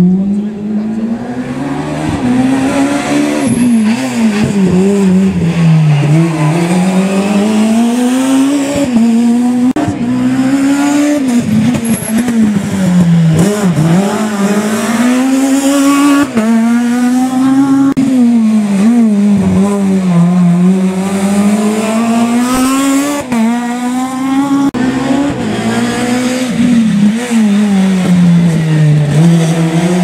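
Rally cars' engines at full throttle through tight hairpin bends. The engine note climbs and drops back again and again as the drivers rev through the gears, lift and brake for the corners.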